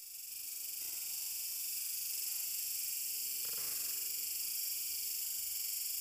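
Steady, high-pitched insect chorus buzzing in the forest, swelling over the first second and then holding level.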